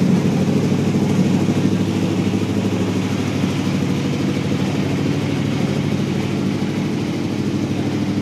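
Light truck's engine idling steadily close by.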